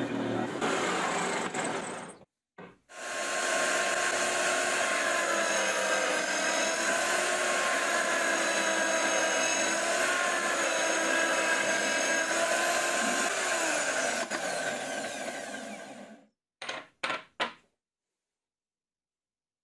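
Drill press running and boring a centre hole through a plywood disc: a steady machine whine that dips slightly under load, then falls in pitch as the motor winds down near the end. A few short knocks follow.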